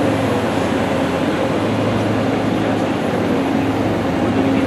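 Aircraft machinery running steadily on the ramp: a loud, even drone with a low hum beneath it.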